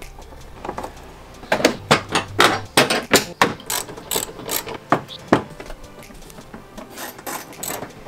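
Sharp, irregular clicks and knocks of a hand tool working the front bumper's fasteners in the wheel well, several a second through the middle. Lighter, quicker clicks come near the end.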